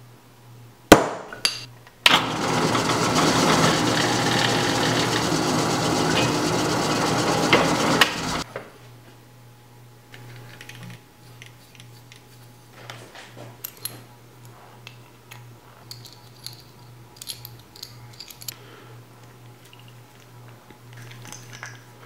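A hammer strikes a center punch on an aluminum buckle blank, one loud crack and then a lighter tap. A power drill then runs for about six seconds, boring through the aluminum, and stops suddenly. Faint scrapes and clicks follow from a hand deburring tool shaving the edge of the blank.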